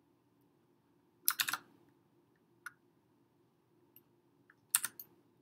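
Computer keyboard and mouse clicking: a quick burst of clicks about a second in, a single click a little later, and another burst near the end, over a faint steady hum.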